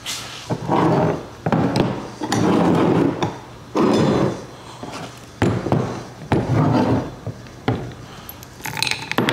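Repeated clunking and rattling as the removed water pump and its bolts from a John Deere 4045T diesel are handled, about eight separate bursts, each under a second long.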